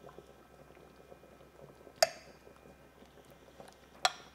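Soft mouth sounds of tasting and chewing a spoonful of stew. A metal spoon clinks sharply against a glass bowl twice, about two seconds in and again near the end.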